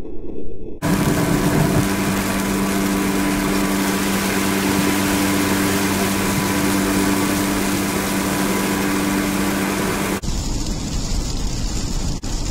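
Road and engine noise inside a car driving on a highway: a steady rush with a constant engine hum under it. It starts abruptly about a second in and changes abruptly to a lower rumble near the end.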